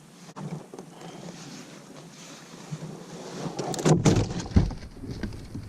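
Knocks and handling noises on a kayak on the water. About four seconds in they turn louder, with sharp knocks over a low, uneven rumble.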